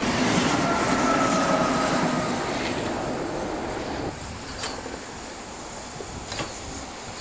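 Steam locomotive 23 042, a Deutsche Bundesbahn class 23, hissing out steam low by its wheels. The hiss is loudest for the first two seconds or so, with a faint squealing tone over it. It then turns quieter, with a couple of sharp clanks.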